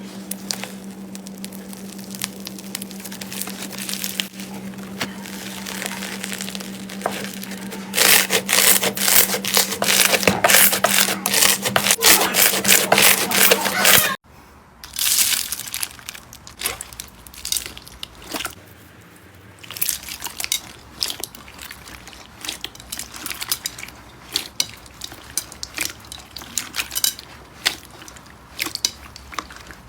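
Slime being squeezed and pressed by hand, giving crackling, popping clicks over a steady low hum. The clicks grow dense and loud about eight seconds in. After an abrupt cut about halfway through, the slime sounds are quieter, with sparser scattered clicks.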